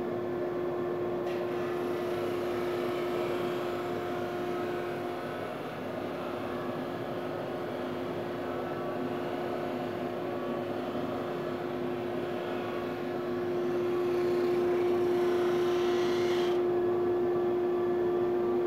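Powermatic 22-44 drum sander running with a board on its conveyor: a steady motor hum under a continuous sanding and dust-extraction hiss. The hiss grows louder and brighter for about three seconds near the end.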